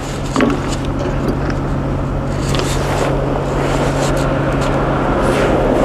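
Twin-engine cold-water trailer sewer jetter (XtremeFlow 3, 18 GPM at 4,000 PSI) running with a steady engine hum. Over it, a rush of high-pressure water grows slowly louder as the jetting nozzle goes into a 12-inch pipe.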